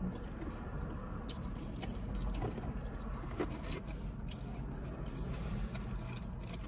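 Close-up eating sounds: chewing, with scattered small clicks and rustles as fingers pick fried chicken and fries out of a styrofoam takeout box. A steady low hum runs beneath.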